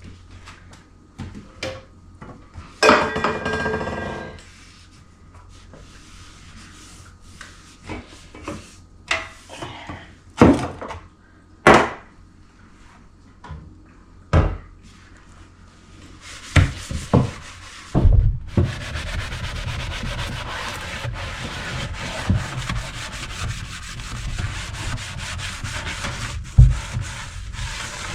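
Dishes being hand-washed at a kitchen sink: scattered knocks and clatter of dishes and pots with scrubbing and rubbing, then a steady rush of noise that begins about two-thirds of the way in and carries on.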